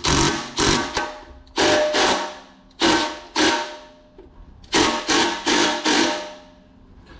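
Kobalt cordless impact wrench hammering the strut's top nut tight in about ten short bursts with pauses between, running the nut down onto the strut top mount.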